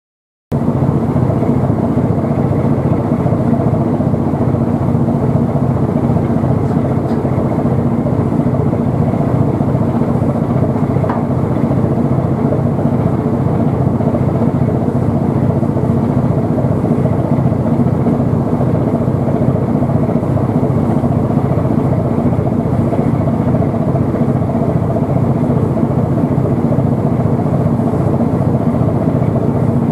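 Steady engine drone with a low hum, starting about half a second in and holding unchanged.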